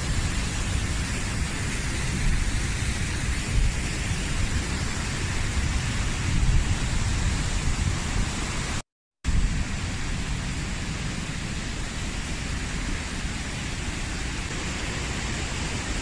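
Steady rushing of water from a waterfall and a fast mountain river, with a low rumble that is stronger in the first half. The sound cuts to silence for about half a second about nine seconds in.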